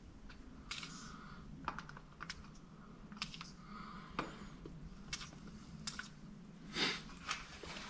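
Aerosol can of PB Blaster penetrating oil sprayed in a string of short spurts and clicks, with one longer, louder spurt near the end, to free a brake rotor rusted onto its hub. A low steady hum runs underneath.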